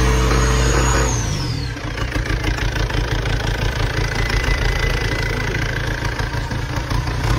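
Turbocharged diesel engine held at high revs, then let drop to idle about a second in, its turbo whine falling away as the revs come down. It then idles steadily.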